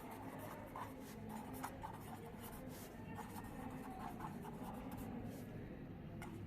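Handwriting: a pen scratching faintly in short, irregular strokes.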